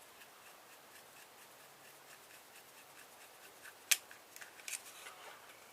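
Faint small clicks and scrapes of hand tools working on a small electrical switch or fitting, with a steady light ticking at first, then one sharp click about four seconds in and a few more just after.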